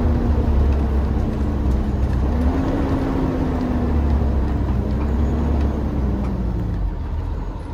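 Cummins ISB 6.7 diesel engine of a 2019 IC CE bus running under way with a deep rumble and road noise, heard from the driver's seat. Its note rises briefly about two seconds in, then falls away steadily as the bus slows.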